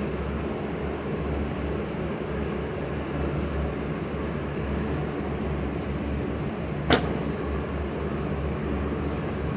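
Steady low rumble and hum of an indoor shooting range's ventilation, with one sharp crack about seven seconds in.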